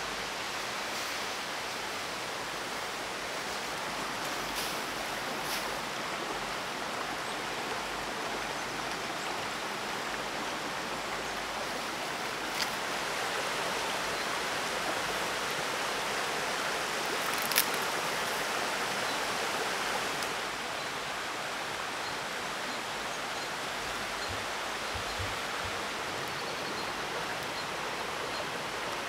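Steady, even rushing noise, a little louder in the middle, broken by two sharp clicks about thirteen and eighteen seconds in.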